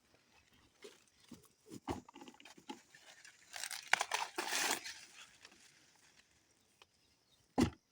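Dry corn leaves and husks rustling and crackling as ears of corn are handled and pulled from the stalks, with a denser burst of rustling about halfway through and a sharp knock near the end.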